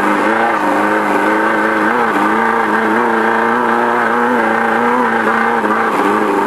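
Engine of a VW Beetle-based off-road race car heard from inside the car, running steadily under load, its pitch wavering up and down with the throttle.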